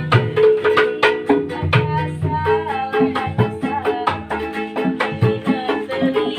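Street buskers' music: a quick, steady hand-drum beat under a melody line.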